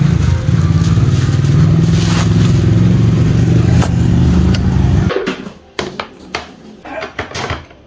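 A Honda motor scooter's engine running with a steady low drone, which cuts off abruptly about five seconds in. After it come a few clinks and knocks of dishes on a glass-topped table.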